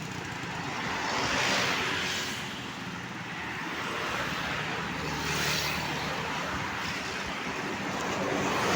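Road traffic passing close by: a steady rush of engine and tyre noise that swells twice, about one and a half seconds in and again about five and a half seconds in, as vehicles go past.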